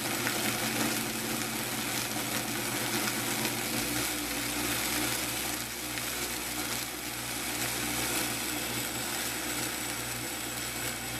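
Vitamix blender motor running at a raised speed, grinding dried cayenne peppers into flakes: a steady, even whir.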